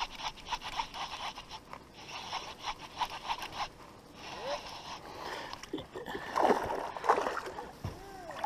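Fishing reel being cranked in a fast run of clicks, then water splashing as a hooked fish thrashes at the surface beside the boat, loudest about two-thirds of the way in.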